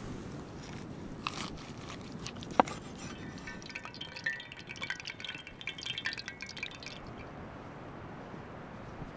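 Tempura-battered ostrich heart frying in hot oil in a cast-iron pan: a crackling, spattering sizzle that starts about three seconds in and cuts off suddenly about two seconds before the end. A sharp click comes just before it.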